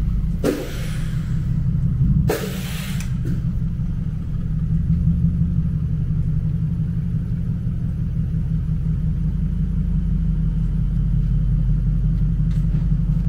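Lexus LS460L's 4.6-litre V8 running at low speed through a one-off stainless exhaust, straight in the front and middle sections with a silenced loop at the rear, giving a deep, steady exhaust note as the car creeps past. Two short bursts of hissing noise come near the start.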